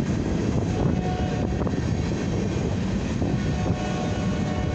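Covered hopper cars of a freight train rolling past at about 29 mph: a steady rumble of steel wheels on rail, with a few faint clacks and a faint high tone that comes and goes.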